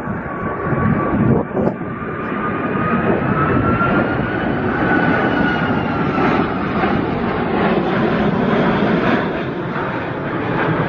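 Jet airliner's engines running as it passes close: a whine over a wide roar that rises in pitch and then falls away about halfway through. Gusts of strong wind buffet the microphone in the first couple of seconds.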